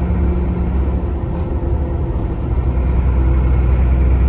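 Truck's engine and road noise heard from inside the cab while driving along: a steady low drone that grows a little louder in the second half.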